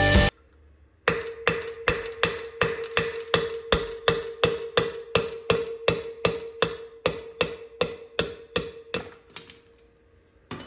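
Hammer striking a steel punch to drive the governor gear out of a Tillotson 212 engine's aluminium block: an even run of sharp blows, about three to four a second, each ringing with the same metallic note, growing weaker toward the end. A single metallic clink follows near the end.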